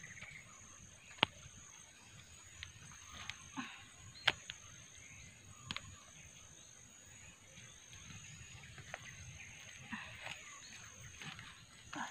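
Hand-digging in soil with a small blade: scraping and rustling of earth and roots, with a few sharp snaps.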